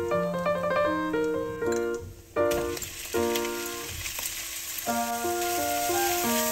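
Sliced raw beef sizzling in hot oil with minced garlic in a frying pan, the sizzle starting suddenly about two and a half seconds in, under light piano music.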